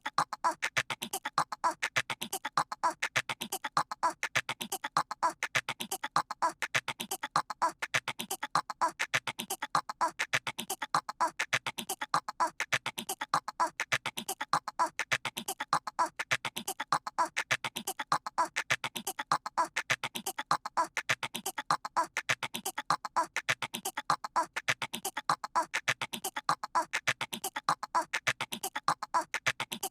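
A cartoon toddler's voice imitating a squirrel: fast clicking chatter, repeated over and over in an unchanging loop.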